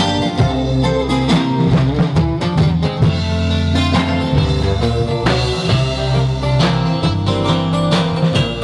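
Live band playing an instrumental introduction with strummed acoustic guitars, electric bass and drum kit, in a steady rhythm.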